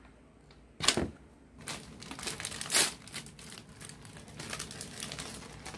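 Plastic packaging crinkling as hands handle and open the pack holding a new green fuel hose, a dense crackle starting about a second and a half in. A single sharp knock comes about a second in.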